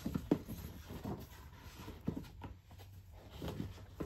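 A large cardboard box and its cardboard sleeve being handled, rubbing and scraping against each other, with a few sharp knocks. The loudest knock comes about a third of a second in.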